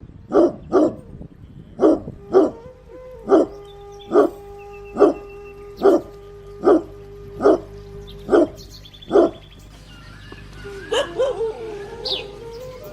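A dog barking, about a dozen short barks at a steady pace of roughly one a second, stopping about nine seconds in. Warbling, chirping tones follow near the end.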